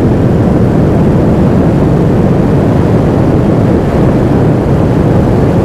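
Royal Enfield Classic 350's single-cylinder engine running steadily at cruising speed, blended with a steady rush of wind and road noise.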